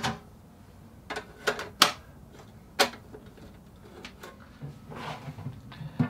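Sharp plastic clicks and knocks, about five in the first three seconds, as the plastic shelf and latch fittings inside a refrigerator are handled.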